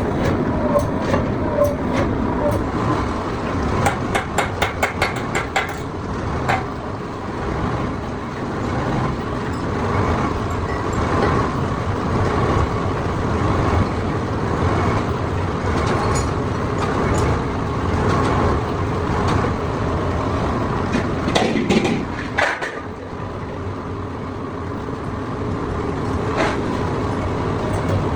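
Metalworking workshop noise: machinery running steadily, with a quick run of about five sharp metallic clicks a second a few seconds in and a few louder metal knocks later on.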